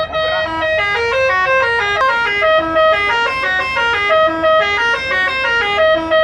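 Bus 'telolet' musical air horn playing a quick tune, its notes stepping up and down about four or five times a second without a break.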